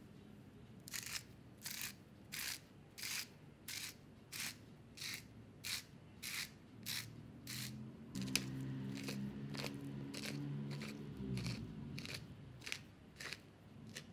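Salt and pepper grinders twisted over raw mackerel pieces: a regular run of short gritty grinding strokes, about one and a half a second, with a pause around eight seconds in before the strokes resume.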